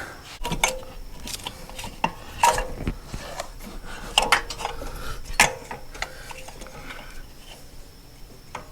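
Scattered metallic clinks and light knocks of hand tools and engine parts being handled as the old EGR valve and its tube are worked loose, some clinks ringing briefly.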